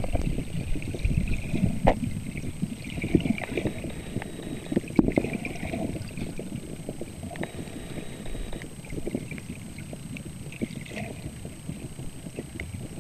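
Water noise on a submerged camera as it is moved about underwater: an uneven low rushing and sloshing with scattered knocks and clicks, over a faint steady high tone.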